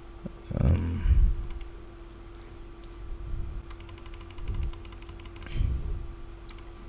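Computer mouse scroll wheel clicking, a quick even run of light ticks lasting about two seconds midway. A steady faint hum runs throughout, and there is a brief muffled low sound about a second in.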